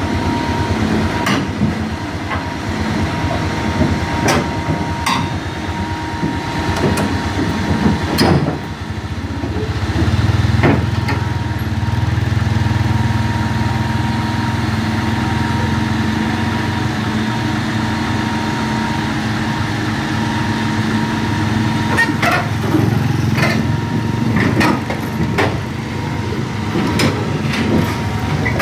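Caterpillar 320 GC tracked excavator's diesel engine running as the machine climbs onto a low-bed truck trailer, its steel tracks clanking now and then. The engine's low note grows louder from about ten seconds in and stays up.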